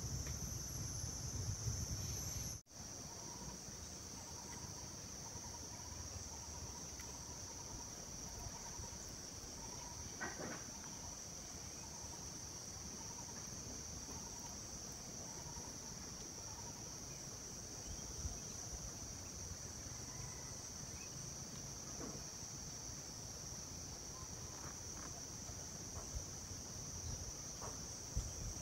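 Steady, high-pitched chorus of insects droning without a break, with a few faint clicks. The sound cuts out for an instant about two and a half seconds in.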